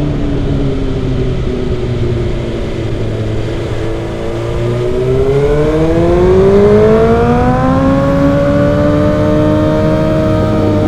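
Suzuki GSX-R1000 inline-four engine through an M4 aftermarket exhaust, under way. Its note sags slightly, then climbs smoothly for about four seconds from about four seconds in as the throttle is opened, and holds at the higher revs near the end.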